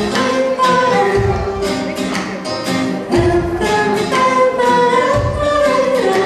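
Live pop band playing, with a woman singing the lead melody over electric guitar, keyboard and drums.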